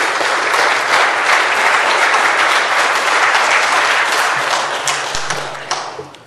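Audience applauding, a dense clapping that fades away near the end.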